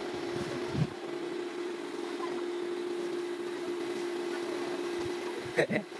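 A small motor running steadily at an unchanging pitch, with a brief thump just before a second in and a short voice near the end.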